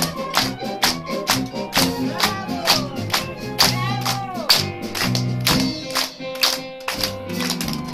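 Lively dance music with a quick, even percussion beat and swooping, sliding notes over it.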